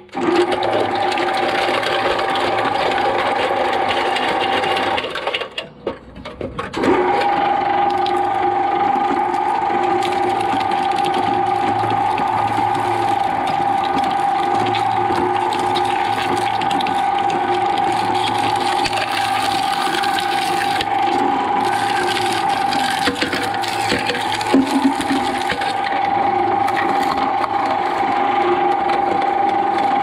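Twin-shaft shredder running, its electric drive giving a steady high whine as the toothed cutter shafts turn on network cable. The sound drops out briefly about five to seven seconds in, then the same whine resumes.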